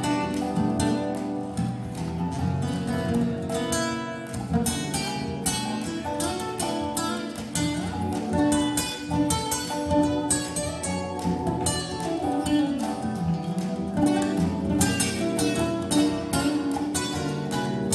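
Live band playing an instrumental break led by an acoustic guitar, with bass and keyboard underneath.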